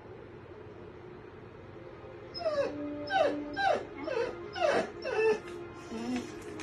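A dog giving a quick run of high whining yelps, each sliding down in pitch, about two or three a second, starting about two seconds in. Quiet music from a television plays underneath.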